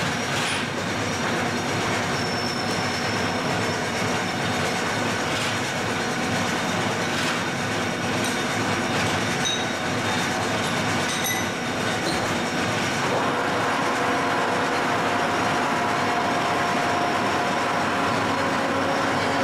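Milling machine running: a steady mechanical noise with several whining tones and scattered clicks, the tones shifting in pitch about two-thirds of the way through.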